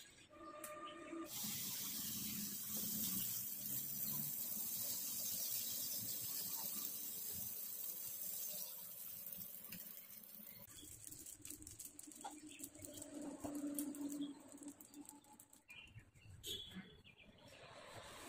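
Oil and coconut dosa batter sizzling on a hot nonstick tawa. A steady hiss starts about a second in and drops away about ten seconds in, then gives way to fainter crackling.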